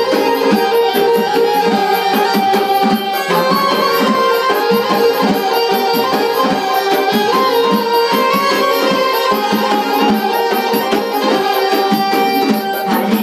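Live Azerbaijani folk music: a garmon (button accordion) and an electronic keyboard play the melody over the steady strokes of a gaval frame drum.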